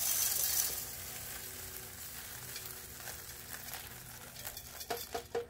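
Birdseed being poured into a bird feeder: a hiss of grains that starts loud and tapers off as the pour thins, with a few small clicks near the end.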